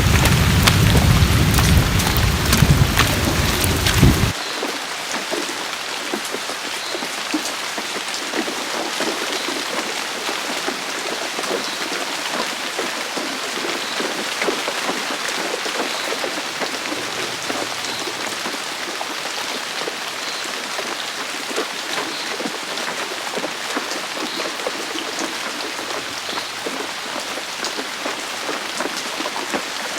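Heavy rain falling in a steady dense hiss of drops. For the first four seconds it is louder, with a deep rumble under it that cuts off suddenly.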